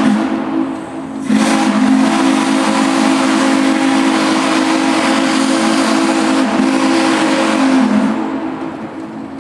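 Steam whistle of Shay geared steam locomotive #5 blowing over a hiss of steam: the tail of one blast right at the start, then a long blast starting about a second in, dipping briefly about six and a half seconds in and stopping about eight seconds in, after which the sound fades.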